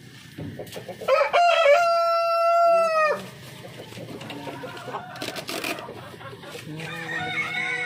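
A rooster crowing: one loud, long crow starting about a second in and falling off at its end, then a fainter crow from another bird near the end.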